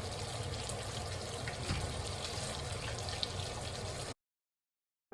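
Steady running water, with a few faint clicks, cutting off abruptly about four seconds in.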